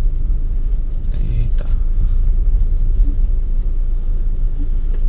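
Low, steady rumble of a car's engine idling, heard from inside the stopped car.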